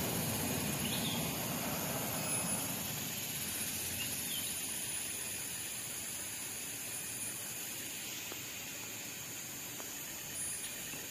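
Tropical forest ambience: a steady high insect hiss, with a few faint, short, downward-gliding bird chirps.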